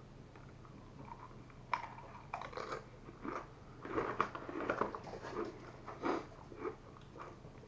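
Paqui ghost pepper tortilla chip being bitten and chewed, a run of irregular crunches starting about two seconds in.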